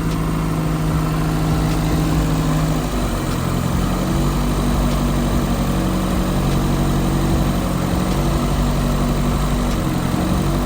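1990 Toyota Celica GT's four-cylinder engine running at a steady fast idle, its pitch shifting about three seconds in. The idle is held up because the newly fitted accelerator cable is adjusted way too tight.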